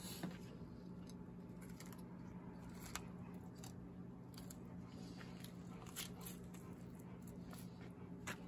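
Faint knife work on a walleye's head: soft cutting, scraping and the odd sharp click as the cheek meat is cut out with a fillet knife, over a steady low hum.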